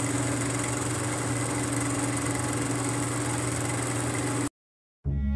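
Film projector running sound effect: a steady whir with a low hum and hiss, cut off abruptly about four and a half seconds in. After a brief silence, music begins at the very end.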